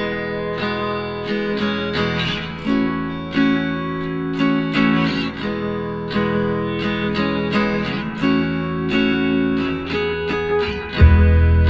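Background music of an acoustic guitar, picked and strummed in a steady rhythm, with a loud low bass note coming in near the end.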